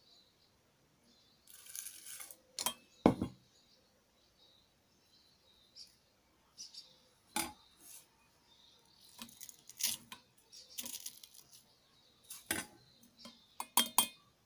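Kitchen handling sounds while oil is strained: a paper-towel filter rustling as it is squeezed, and a plastic sieve and utensils clicking and knocking against a stainless-steel saucepan in scattered, irregular knocks, the loudest about three seconds in and a quick cluster near the end.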